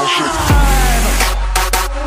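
Electronic dance music: a slowly falling synth tone, with a deep bass that drops in about half a second in.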